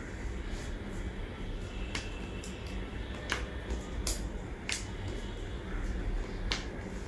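About five sharp, short clicks and pops, irregularly spaced, from joints cracking as the spine and neck are manipulated in a chiropractic adjustment.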